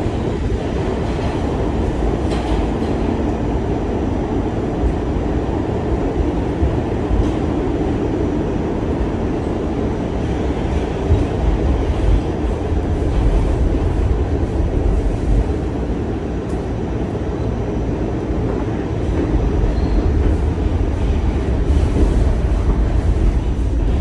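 New York City subway train running along the track, heard from inside the car: a steady rumble of wheels on rail with a few faint clicks.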